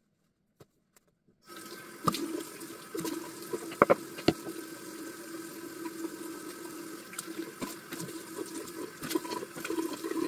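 Bathroom tap running steadily into the sink, switched on about a second and a half in, while water is splashed onto the face, with a few sharp knocks early on.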